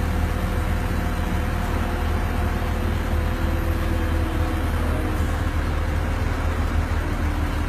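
Heavy-equipment diesel engine running steadily at constant speed, a deep, unchanging rumble.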